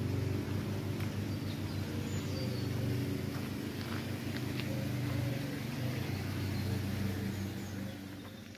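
A steady low motor drone with an even hum, fading near the end, with a few faint bird chirps above it.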